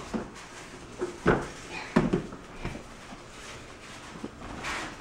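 Two sharp knocks about two-thirds of a second apart, with lighter clattering around them, from a toddler's plastic ride-on toy train being handled and bumped on a hardwood floor.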